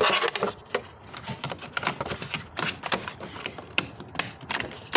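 Irregular clicking and knocking of engine-bay parts being handled and fitted back into place by hand.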